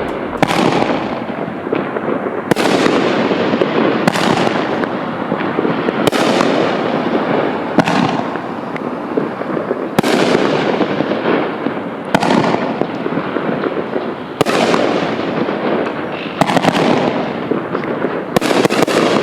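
Death Blossom large shell cake firing its 3-inch shells: loud aerial breaks one after another, about every two seconds, each trailing off into a fading rumble.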